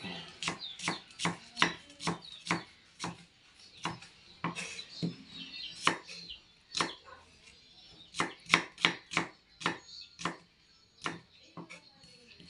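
Knife cutting food on a cutting board: sharp, irregular knocks of the blade hitting the board, about two to three a second, in runs broken by short pauses.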